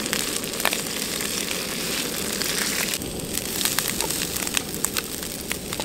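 Chopped green onions frying in hot oil in a pan to make scallion oil: a steady sizzle with frequent small crackling pops.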